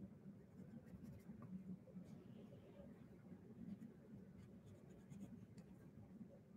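A graphite pencil scratching faintly on drawing paper as it shades in strokes.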